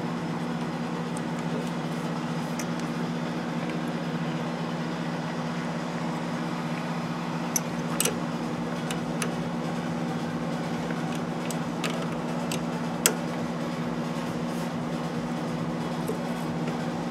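Steady low workshop hum, with a few sharp clicks of hand tools as brake line fittings are tightened; the loudest click comes about thirteen seconds in.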